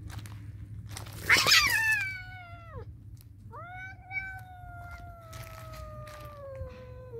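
Two domestic cats caterwauling in a fight standoff. About a second in there is a sudden harsh screech that drops away in pitch. From about three and a half seconds a long, drawn-out yowl sinks slowly in pitch.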